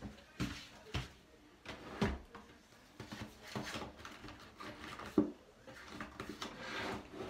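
Scattered knocks and bumps of household handling, a handful of separate hits with light rustling between them; the sharpest knock comes a little past the middle.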